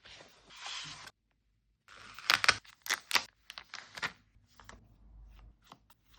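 Packaging being handled and torn open: a rustle, then a run of tearing and crinkling with sharp snaps from about two seconds in, thinning into lighter clicks near the end.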